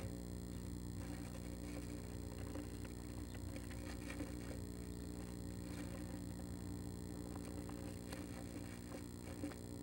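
Steady low hum made of several fixed tones, with faint scattered scratches and taps as a female northern flicker shifts on wood shavings inside a nesting box.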